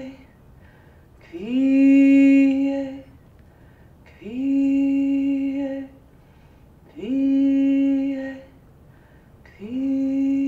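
A woman's voice intoning a long held vowel on one steady pitch, four times in a row. Each note scoops up into the pitch, is held about a second and a half, and is followed by a short pause. This is vocal sound poetry, not ordinary speech or song.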